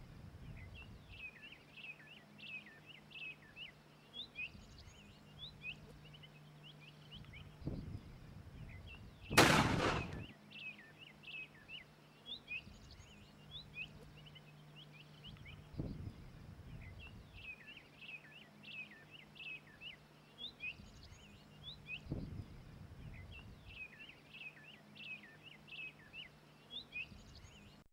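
A single shotgun blast about nine seconds in, sharp and loud with a short echoing tail, over continuous birdsong of quick, repeated chirps. A few softer low thumps come before and after the shot.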